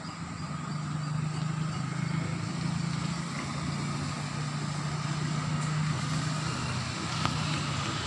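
A motor vehicle engine running steadily as a low hum, getting louder over the first second and then holding.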